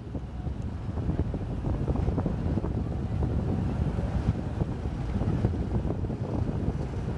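High-speed rescue boat running at speed across the water, its engine and hull rush a dense low rumble that grows louder over the first couple of seconds as it approaches, heavily buffeted by wind on the microphone.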